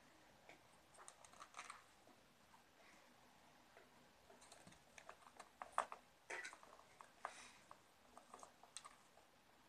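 Faint, irregular clicks and scratchy taps from a kitten's paw and claws working at a short cardboard tube wedged in couch cushions, trying to reach a small plastic egg inside. A few taps come about a second in, then a busier run from about four and a half seconds on, loudest just before six seconds.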